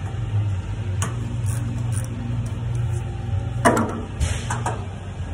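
Scattered metal clicks of hand tools on the truck's exhaust aftertreatment housing, with one sharp clink a little past the middle and a brief scrape just after, as a sensor is removed with a quarter-inch drive ratchet and socket. A steady low hum runs underneath.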